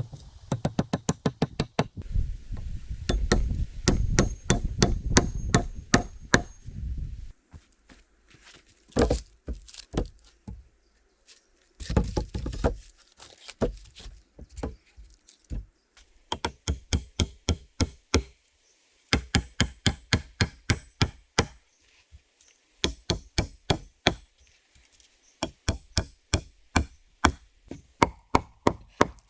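A knife chopping quickly on a wooden cutting board, in runs of about five or six strokes a second with short pauses between them.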